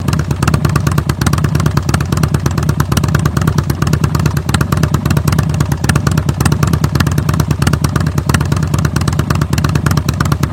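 Harley-Davidson Softail Slim S V-twin running steadily without revving, heard through a Kesstech ESM3 flap exhaust as a loud, dense beat of exhaust pulses.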